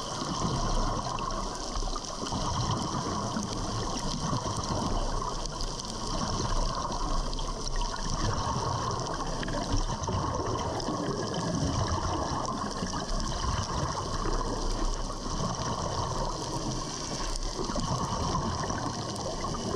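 Steady rushing and bubbling of water, heard underwater.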